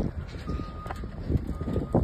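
Vehicle backup alarm beeping, one steady high beep about every second, with a few sharp thumps among the beeps.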